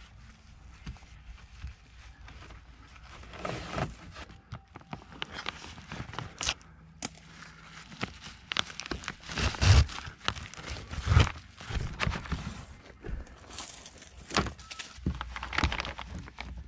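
Irregular rustling, crinkling and scraping as 6-mil polyethylene vapour barrier sheeting and a rope are handled and tied by leather-gloved hands, with two louder thumps a little past the middle.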